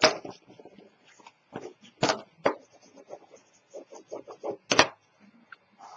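Tabletop handling of chipboard and paper on a cutting mat: pieces and a bone folder are picked up, slid and set down, with sharp taps and knocks and softer shuffling between. The strongest knocks come at the very start and just before five seconds in.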